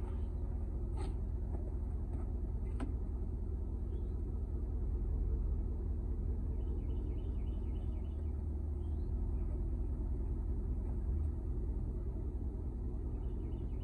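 A steady low rumble throughout. Faint runs of short chirps come a few times, and two light clicks come about one and three seconds in.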